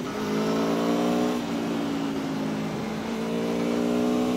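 Aprilia Tuono V4 1100's V4 engine pulling on the road with wind rush. The revs climb, ease back about a second and a half in, then climb again near the end.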